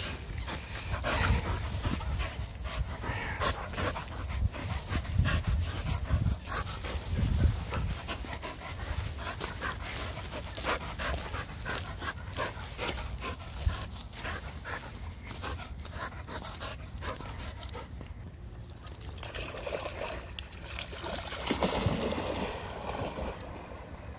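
Springer spaniel panting eagerly, over low rumbling microphone noise. Near the end, water splashing as the dog goes into the lake.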